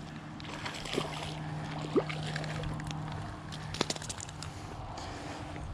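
Water sloshing and splashing as a hooked bass is brought in to the bank, with a few sharp knocks and a steady low hum underneath.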